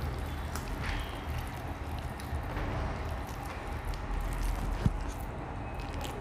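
Close-up eating sounds: wet chewing, lip smacks and fingers squishing rice on a plate, over a steady low rumble, with one sharp click a little before the end.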